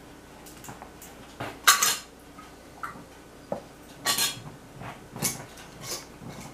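A ladle and glass canning jars clinking and scraping against a stockpot as cooked beans are ladled into pint jars. There are several short, sharp clinks, and the loudest comes nearly two seconds in.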